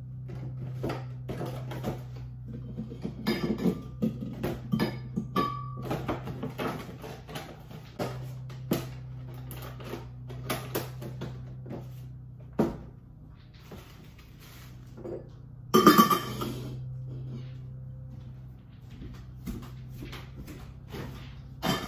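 Lemons and glassware knocking and clinking as lemons are put into a glass jar and bowl on a kitchen counter. There is a louder clatter about two-thirds of the way in, over a steady low hum.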